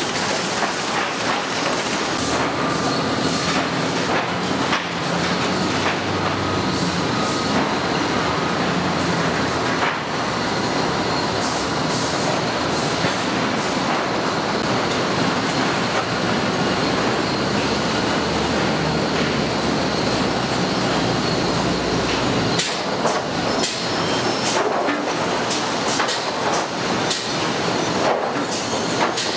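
Sawmill lumber stacking machine running: a loud, continuous mechanical din of conveyor chains and machinery with frequent sharp knocks of boards. A low drone under it drops away about three quarters of the way through.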